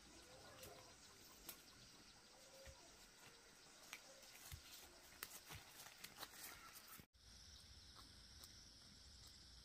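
Near silence: faint outdoor ambience with scattered small clicks and a few faint chirps. It breaks off for an instant about seven seconds in, and a steady high-pitched hiss comes in after.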